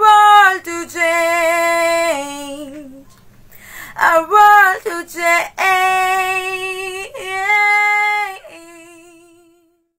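A woman singing unaccompanied, holding long sustained notes on the closing line 'our world to change'. The last note wavers with vibrato and fades out near the end.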